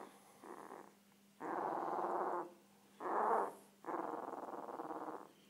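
One-week-old komondor puppy grunting and snuffling in rough bursts about a second long, the loudest about three seconds in.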